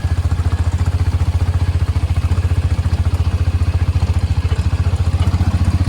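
A small vehicle's engine running steadily, close by, with a fast, even pulse.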